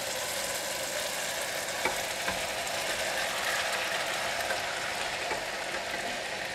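Sauce bubbling and sizzling in a wok as pieces of raw fish fillet are slid in from a plate, with a few light clicks from the plate and spatula.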